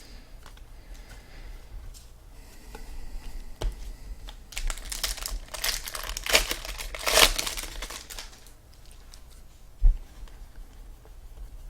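Trading card pack wrapper being torn open and crinkled, a dense rustle from about four and a half to eight seconds in, with a single knock near the end.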